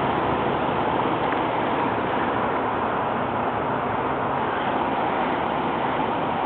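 Steady road traffic noise: a continuous even rush from vehicles on a busy street, with no single car standing out.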